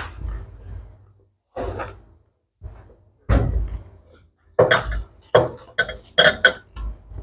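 Close-miked eating sounds: a string of sharp bites, chewing and knocks, coming faster in the second half.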